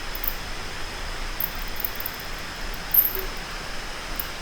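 Steady background hiss with a faint, steady high-pitched tone, a few short faint high ticks, and one brief soft knock about three seconds in.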